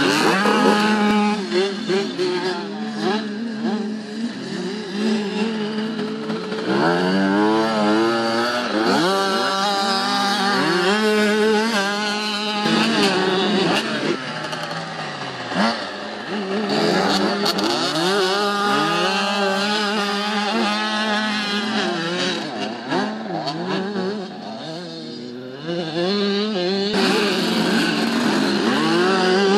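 Small two-stroke motocross bikes revving hard, several engines rising and falling in pitch as riders accelerate and shift through the gears, over a steady engine drone.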